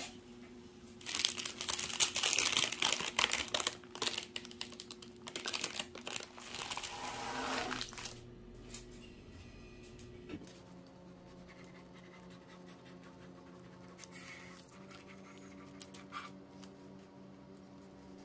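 Parchment baking paper crinkling and rustling in loud bursts for about seven seconds as the baked pancake on it is handled, then only a faint steady hum.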